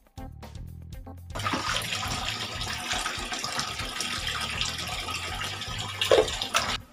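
Kitchen tap running into a stainless steel sink, with water splashing as raw pork intestines are rinsed by hand. The water starts about a second in and stops just before the end.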